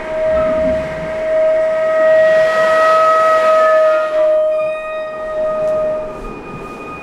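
Violin bowing one long sustained note, with quieter held notes above it and a breathy hiss rising and falling over them; the main note fades out about six seconds in.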